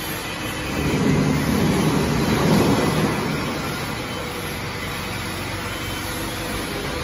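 A vehicle engine running steadily. It swells louder for about two seconds, starting about a second in, then settles back.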